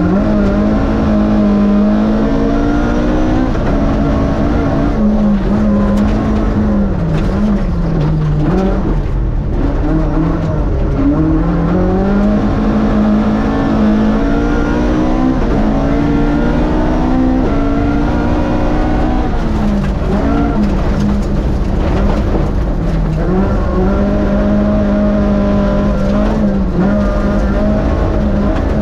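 Rally car's Vauxhall 2.0-litre four-cylinder engine at stage pace, heard from on board: loud and continuous, the revs repeatedly climbing and dropping back as it runs through the gears and eases for corners.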